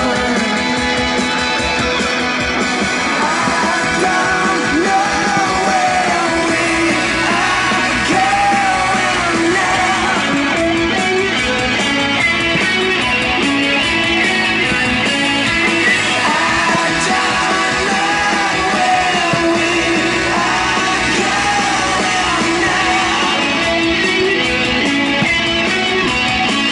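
Rock song with singing and guitar, playing loud and steady.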